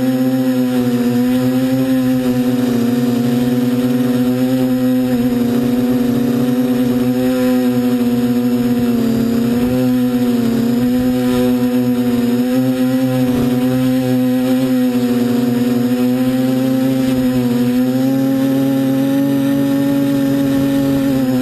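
Buzzing whine of a DJI F450 quadcopter's four electric motors and propellers, heard from the GoPro on its frame as it hovers. The pitch wavers slightly as the motors keep adjusting speed to hold position.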